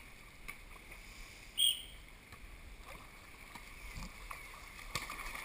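Swimming-pool water sloshing and lapping around a GoPro held at the surface. There are a few sharp slaps, and a brief high squeak about a second and a half in.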